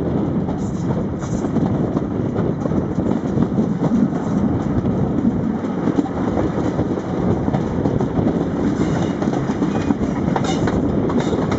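Passenger train running along the line, heard from an open carriage window: a steady rumble of wheels on rail, with a few sharp clicks near the end.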